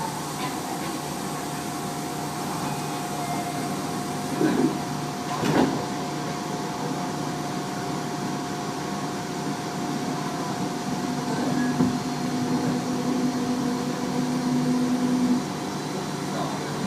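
Tobu 30000 series electric train running at a steady speed, heard from inside a passenger car: rail and running noise with a steady motor whine from a train the uploader believes has permanent-magnet synchronous motors. Two short knocks come about four and a half and five and a half seconds in, and a lower hum joins from about eleven seconds in until about fifteen seconds in.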